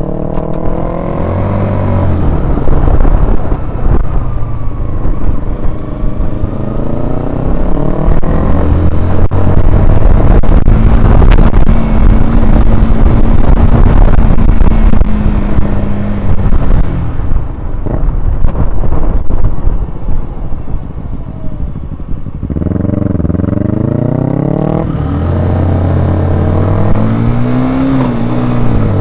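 Honda CBR125R's single-cylinder four-stroke engine running under way over wind rush, its pitch climbing as it accelerates near the start and again about three-quarters of the way through, with a steady stretch in the middle.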